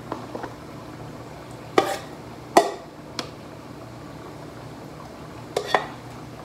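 Metal ladle clinking and scraping against a pot while cooked beans are scooped out, several sharp knocks with two in quick succession about five and a half seconds in.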